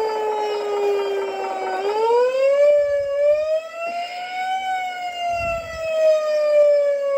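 Simulated siren played by a DIY ESP32 RC engine sound and light controller in a Tamiya King Hauler model truck. It is a slow wail: the pitch sinks, climbs for about two and a half seconds starting about two seconds in, then slowly sinks again.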